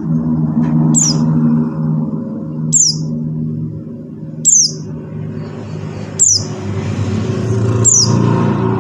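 White-eye (pleci buxtoni) calling: a short, high, falling note repeated about every second and a half to two seconds, five times. Under the calls is a steady low hum.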